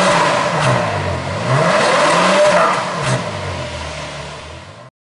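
Ferrari FF's V12 exhaust revved in quick blips, its pitch rising and falling several times. The revs then die away, and the sound cuts off suddenly just before the end.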